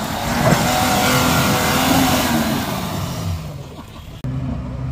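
Off-road 4x4 engine revving under a heavy hiss of noise that dies away about three and a half seconds in. A steady engine hum cuts in abruptly near the end.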